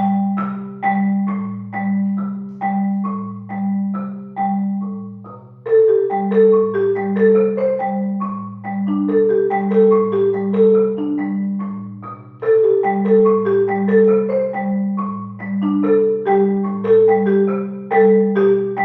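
Marimba ensemble music: struck mallet notes, each dying away, over a repeating low bass line. More parts join about six seconds in, and again just past halfway, thickening the texture.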